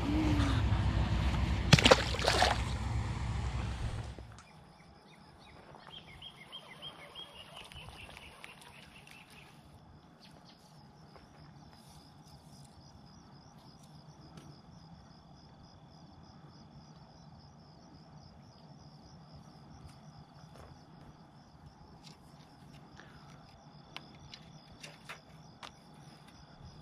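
Loud rumbling handling noise on the microphone for about the first four seconds. Then crickets chirp steadily in a fast, even pulse, with a few faint clicks near the end.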